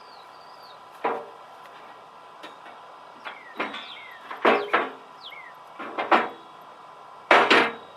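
Steel ratchet rake knocking and clanking against the front-end loader bucket as it is worked into place. A string of sharp metallic knocks, several in close pairs and some ringing briefly, with the loudest pair near the end.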